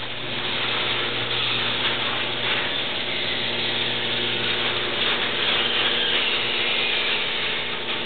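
Genie 1/2 hp screw-drive garage door opener running steadily as it drives the door closed, its motor and screw drive making a continuous mechanical hum and rattle; it shuts off right at the end as the door reaches the floor.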